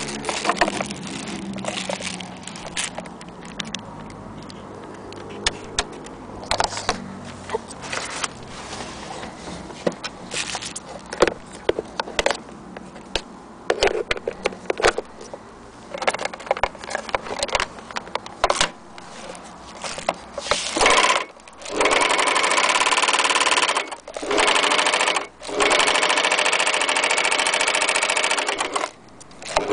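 Clicks and rustling as a power cord and foot pedal are handled, then a Joy's PF857 overlock sewing machine runs at speed in three stretches with brief stops between them.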